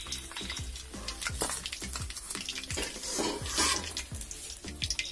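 Cooking oil poured from a bottle into the hot frying oil of a karai, a brief hiss about three seconds in, with the oil crackling. Background music with a steady beat about twice a second plays throughout.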